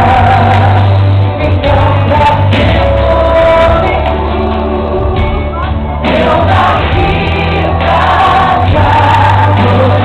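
A female gospel singer sings live into a microphone over loud amplified music with a heavy, steady bass.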